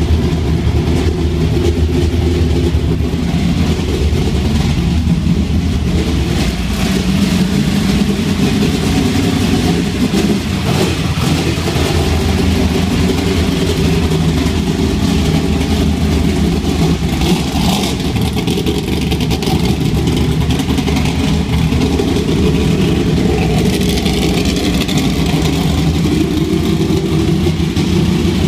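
Hamner Racing Engines V8 in a Monte Carlo stock race car running steadily and loud, its pitch shifting slightly now and then.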